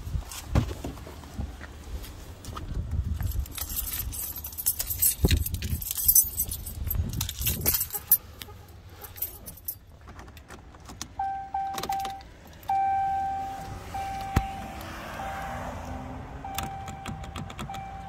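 Keys jangling and handling clicks as someone gets into a 2015 Ram 1500 pickup's cab. Partway through, the truck's electronic warning chime starts beeping repeatedly on one pitch.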